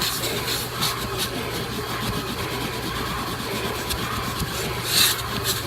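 Vacuum cleaner running steadily, a constant motor hum and rushing air.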